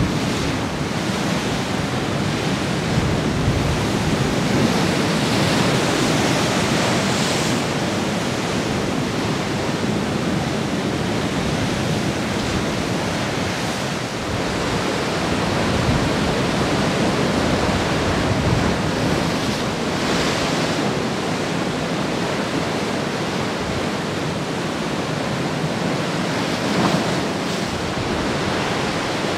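Pacific surf breaking on a rocky lava shoreline: a continuous rush of breaking and washing water that swells and eases every several seconds.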